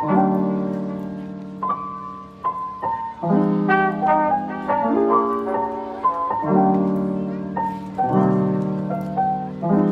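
Lofi hip-hop background music: mellow sustained chords on a keyboard with a melody line above, changing chord about every one and a half seconds over a steady beat.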